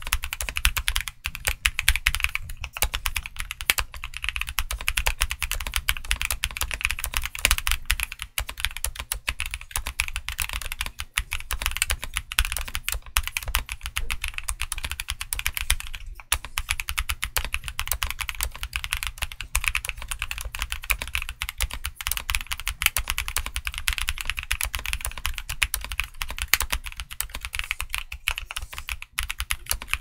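Continuous fast typing on a Heavy Pare65 mechanical keyboard fitted with KPR Black Cherry Pie switches and Domikey Snaake Chaser keycaps: a dense, unbroken run of keystroke clacks.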